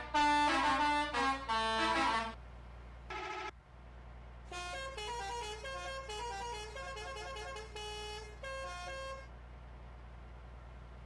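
Indonesian bus 'telolet' horn, a set of multi-tone horns playing short melodic tunes: loud for the first two seconds, one brief blast around three seconds in, then a quieter tune from about four and a half to nine seconds. A steady low rumble runs underneath.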